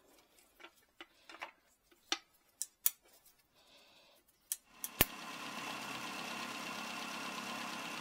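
Sharp clicks and knocks of the distributor cap's clips being snapped back into place, then about five seconds in a loud click and the 1947 Riley RMA's four-cylinder engine running steadily, started once its points were cleaned.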